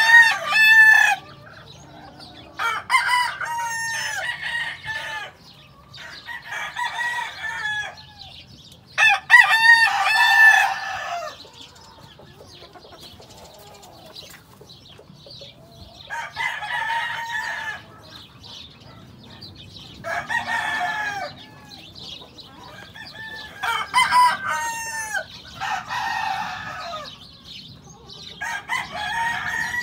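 Gamecock roosters crowing again and again, about ten crows in turn, some loud and close, others fainter.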